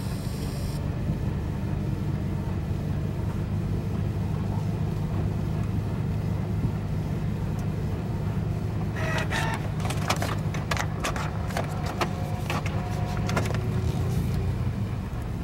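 Vehicle's engine and road noise heard inside the cab while driving, a steady low drone. From about nine seconds in until near the end, a run of irregular clicks and rattles.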